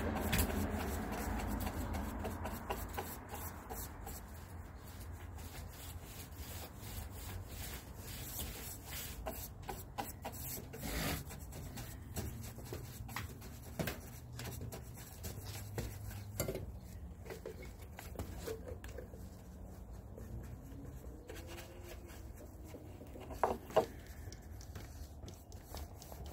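A paint roller on an extension pole is rolling deck stain over wooden porch decking boards, a rough rubbing with a fine wet crackle. A couple of sharper knocks come near the end.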